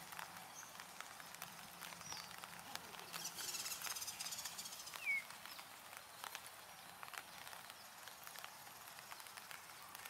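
Faint birdsong ambience: scattered light ticks and taps, a few brief high chirps, a spell of rapid high chatter around the middle, and one short falling whistled note a little past halfway, the loudest sound.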